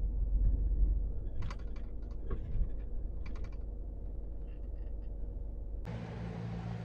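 Low rumble of a truck on the move, heard inside the cab, with a few short clusters of light clicks. About six seconds in it cuts abruptly to a steady hiss over a low hum.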